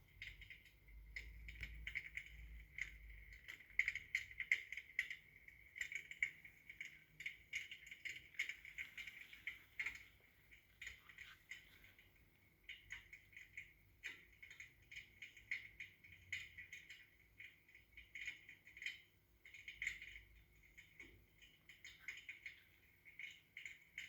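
Electric fireplace's built-in firewood-crackle sound effect playing from its speaker: a quiet, continuous run of small, irregular pops and crackles.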